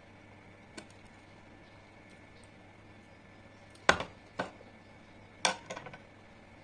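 Tableware clinking: a few sharp knocks of a utensil or glass against a dish. There is a light tap under a second in, a loud clink about four seconds in with a second one just after, and a quick run of several clinks a little later.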